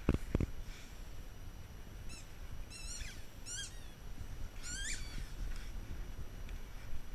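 Short, high, wavering calls that fall in pitch, in a few quick groups about two to three seconds in and again near five seconds, with a couple of knocks at the very start.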